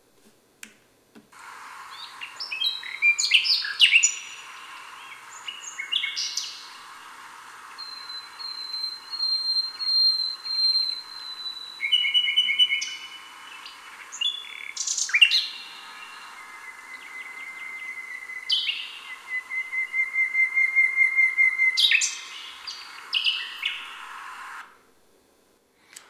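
Two common nightingales countersinging at night: fast varied strophes of clicks, trills and rattles alternating with whistled strophes of slow repeated pure notes, the birds answering each other, at times with the same whistled strophe on the same pitch. One bird cuts into the other's strophe, the overlapping that signals aggression in territorial song. A steady hiss runs under the song.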